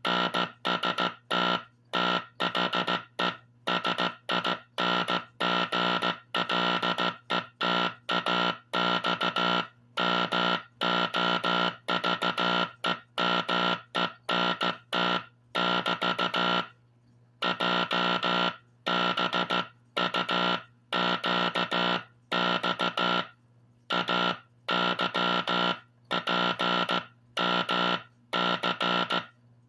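Vintage code practice oscillator sounding Morse code fed from a Teleplex code drum through a speaker: a buzzy tone keyed on and off in quick dots and dashes, clicking at each keying, with short gaps between characters and a longer break about halfway through. A faint steady hum stays underneath.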